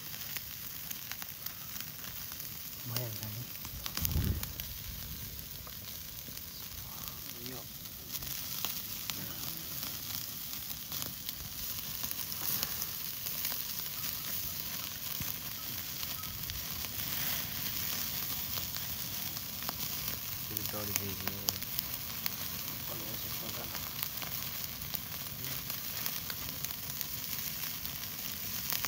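Chicken pieces sizzling on a wire mesh grill over an open wood fire, with the fire crackling and spitting. A single low thump about four seconds in.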